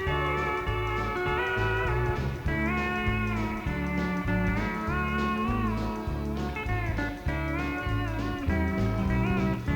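Live country band playing an instrumental break: a pedal steel guitar carries the melody with smooth sliding notes over bass guitar and drums.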